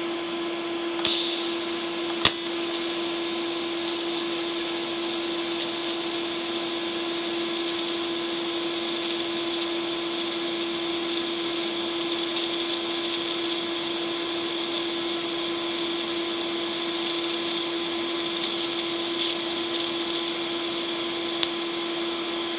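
TIG welding arc laying an autogenous fusion line on steel plate at 90 amps, at the correct travel speed: a steady buzzing hiss over a constant hum, with a sharp click about two seconds in.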